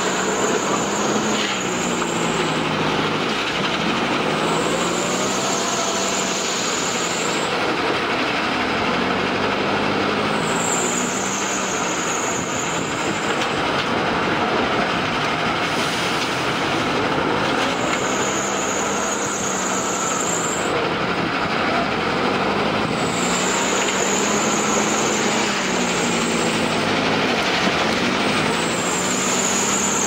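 JCB backhoe loader's diesel engine running under load, its pitch rising and falling again and again every few seconds as the loader digs, lifts and dumps sand, over a steady mechanical din.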